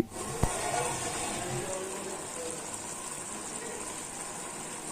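Marinated chicken cooking in oil in a vessel on a gas stove: a steady sizzle. A short click comes about half a second in.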